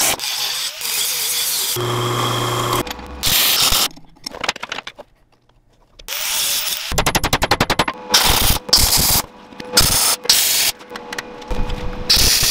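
A string of metal-shop sounds: about two seconds of MIG welding crackle on a steel frame, a short hum, a near-silent gap, then a fast run of clicks followed by several short bursts of power-tool noise as bolts are driven into the frame.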